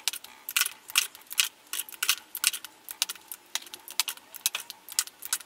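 Plastic Tarte lipstick tubes clicking and clacking as they are picked up, handled and set down in a plastic grid drawer organizer: an irregular run of sharp little clicks, several a second.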